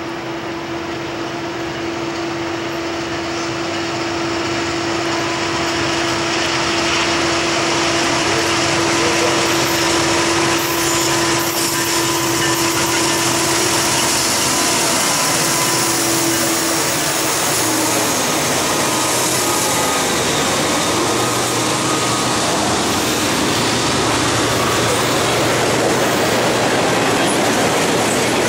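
Diesel-electric freight locomotives approaching and passing, growing louder over the first several seconds, with a steady hum that fades away soon after they go by. Then freight cars roll past at speed.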